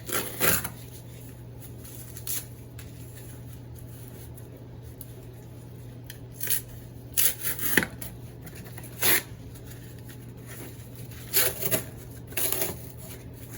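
Pieces of cardboard being handled and pressed into the bottom of a plant pot: irregular short rustles and crackles, a few at a time, over a steady low hum.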